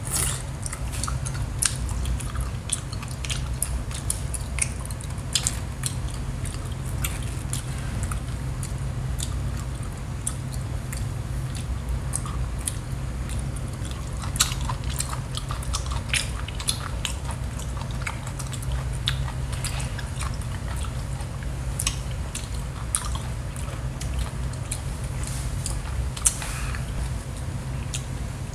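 A person chewing raw seafood, with many small wet clicks and smacks scattered throughout, over a steady low hum.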